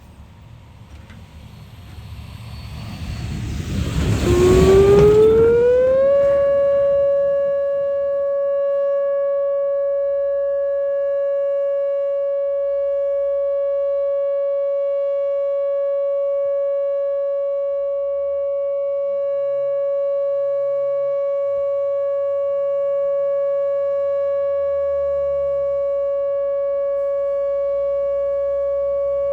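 Whelen WPS-2810 electronic outdoor warning siren sounding its steady tone. It starts after a loud rush of noise, rises in pitch over about two seconds, then holds one steady note.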